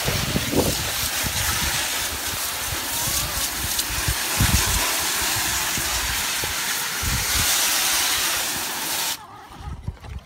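Garden hose spray nozzle jetting water onto a plastic kiddie pool to rinse it out: a steady hiss that cuts off suddenly about nine seconds in.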